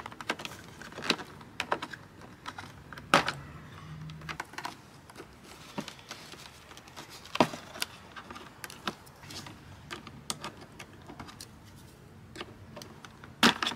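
Irregular plastic clicks and knocks as the factory speaker is pried out of a Mercedes W205 rear door panel with a plastic trim tool, the sharpest knocks about three seconds in, midway and near the end.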